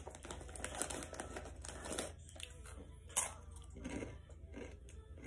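Snack bag crinkling and crunchy chewing close to the microphone, ASMR-style, as a string of small crackles and rustles; one sharp click about three seconds in is the loudest.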